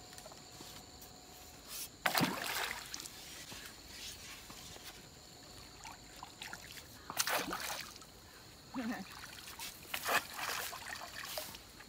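Pond water splashing and sloshing as a bamboo pole beats the surface to drive fish toward a net, in three separate strokes about 2, 7 and 10 seconds in.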